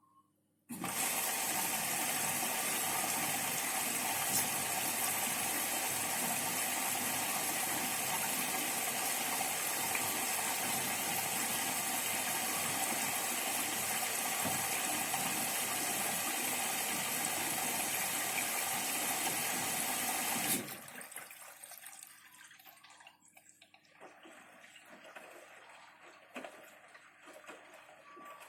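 Bosch Series 6 washing machine taking in water: the inlet valve opens and water rushes in steadily for about twenty seconds, starting and cutting off suddenly. Softer, irregular sounds follow.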